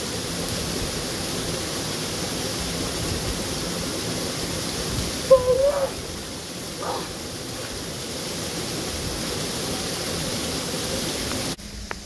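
Small waterfall pouring steadily and splashing on rock and on a man standing beneath it, with a brief wavering shout from him about five seconds in. The rush of water cuts off suddenly near the end.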